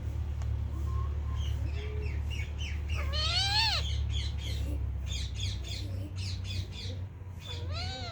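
Pet parakeet squawking: a run of short chirping notes, then a loud harsh call that rises and falls about three seconds in, more short chirps, and another such call near the end. A steady low hum runs underneath.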